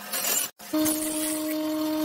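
Scraping, rubbing workshop noise that cuts off abruptly about half a second in, then a power tool's motor runs with a steady, even hum.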